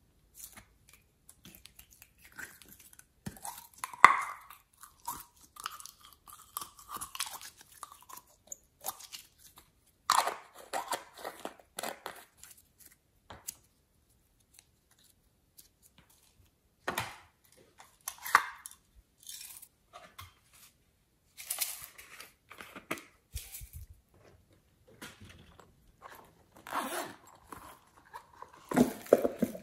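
Hands pulling and stretching sticky pink slime out of a plastic toy container, irregular short sticky pops and crackles, with plastic clicks as the toy containers are opened.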